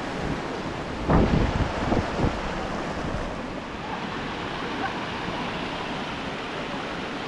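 Shallow mountain river rushing over boulders in a steady watery roar. About a second in, a few low thumps stand out for about a second.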